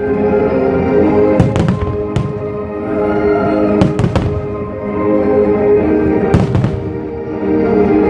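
Fireworks shells bursting overhead: about seven sharp bangs, several in quick pairs, over steady music.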